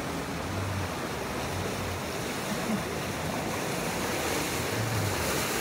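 Steady rush of river water along the hull of a moving boat, with wind buffeting the microphone.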